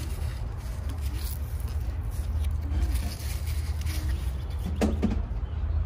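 Rustling and scraping of cucumber leaves and vines brushing against a handheld phone as it is pushed in among the plants, over a steady low rumble. A brief voice is heard near the end.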